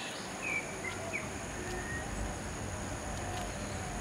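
A few short bird chirps over steady rural outdoor background with a high, even hiss.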